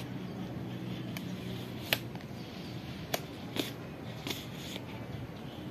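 A few short, sharp clicks and taps, the loudest about two seconds in, over a low steady background hum.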